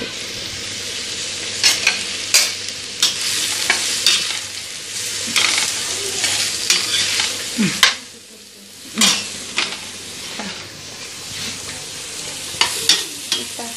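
Sliced onions sizzling in hot oil in a stainless steel pan, stirred with a steel spatula that scrapes and clicks against the pan. The sizzle quietens for about a second around eight seconds in.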